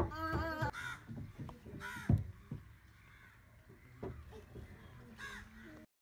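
Crows cawing, a handful of short harsh calls, the longest at the start and others about two and five seconds in, over a low rumble. The sound cuts off abruptly just before the end.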